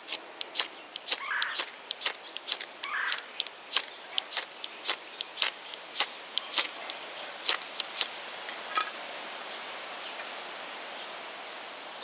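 Ferro rod struck repeatedly with a metal striker, a series of short, sharp scrapes about three a second, throwing sparks into a palm-fiber tinder nest to light it. The strikes stop about nine seconds in.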